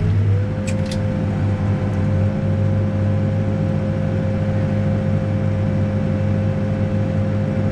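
Heavy-equipment diesel engine running steadily, with a steady whine that rises slightly in pitch about half a second in and then holds. Two light clicks sound about a second in.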